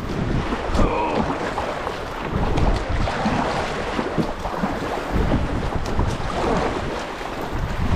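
Fast river current rushing and splashing around a plastic kayak as it is paddled through choppy water, with wind rumbling on the microphone.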